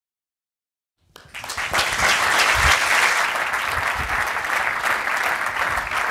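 Audience clapping, starting suddenly about a second in and going on steadily as dense, even applause.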